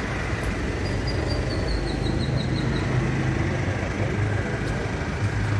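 Steady low engine-like hum over street noise. About a second in, a short run of high chirps falls in pitch over about two seconds.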